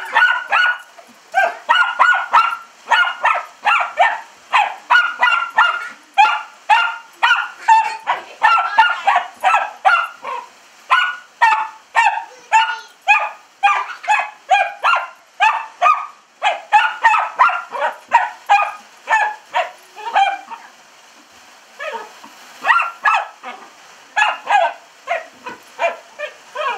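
Long-haired dachshund barking excitedly, short sharp barks two or three a second, breaking off for a couple of seconds near the three-quarter mark before starting again.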